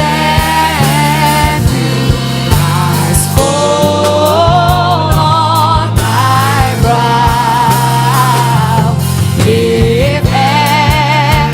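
Slow worship music: a melody of long held notes with vibrato over steady bass notes and keyboard accompaniment.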